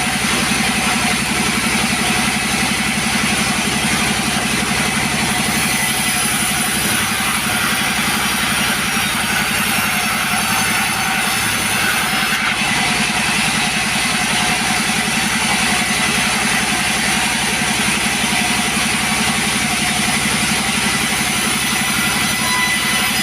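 Two-stroke chainsaw engine running steadily and loudly without a break.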